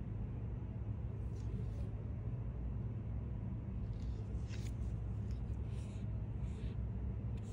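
Steady low hum in the background, with a few faint, short rustles as gloved hands handle a phone.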